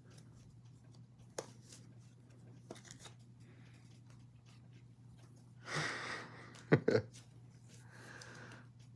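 Baseball trading cards being handled: faint clicks and a short rustle of cards sliding, then two sharp taps just before seven seconds in, over a steady low hum.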